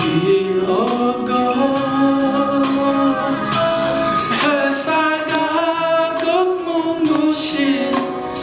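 A song sung by a man into a microphone over instrumental backing, his long notes held with vibrato.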